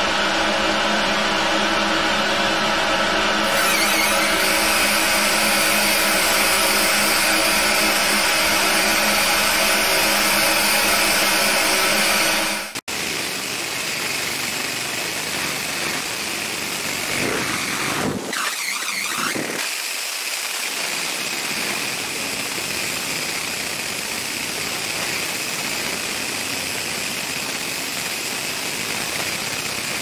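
Fiber laser engraver running as it marks a metal Zippo lighter: a steady machine hum made of many held tones, which cuts off suddenly about 13 seconds in and gives way to an even hiss with a faint high whine as the beam etches the metal.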